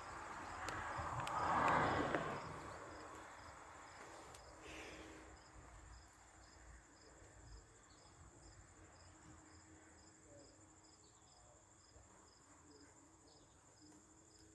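Crickets chirping in a steady, evenly spaced pulse, with a louder rushing noise that swells and fades about two seconds in.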